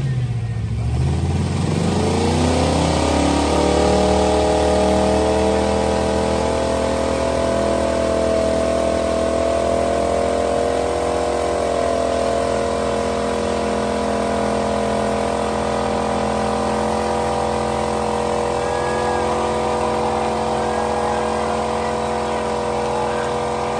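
Pickup truck's engine revving up over about two seconds, then held steadily at high revs through a burnout, its rear tyres spinning in a cloud of smoke.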